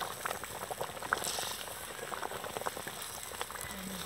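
Thick eel gravy boiling in an aluminium pot, bubbling with many small scattered pops while a ladle stirs through it.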